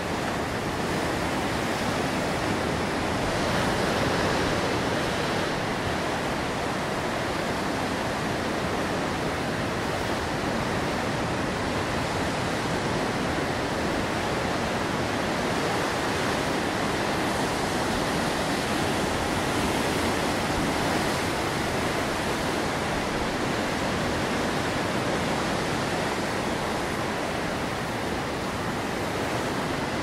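Rough sea surf breaking over a rocky shoreline, a continuous rushing wash of waves that swells a little about four seconds in.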